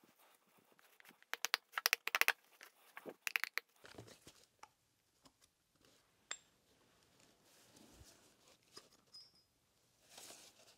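Faint metallic clicks and clinks as a steel 5C collet chuck is handled and taken apart, its two halves separated and lifted off. Quick runs of clicks come in the first few seconds, then scattered single ticks.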